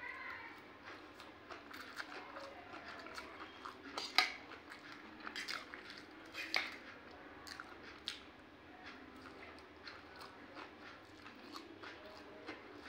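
A person chewing and eating a mouthful of chowmein noodles close to the microphone, with scattered sharp clicks and smacks, the loudest about four seconds in and again about six and a half seconds in.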